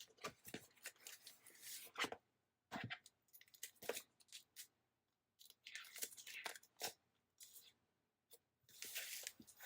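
Paper sticker sheets being handled, with stickers peeled from their backing, in short irregular bursts of rustling separated by brief pauses.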